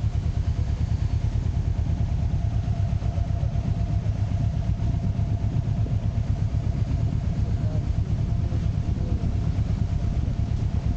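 Motorcycle engine running steadily with a low, even pulsing and a faint steady whine above it.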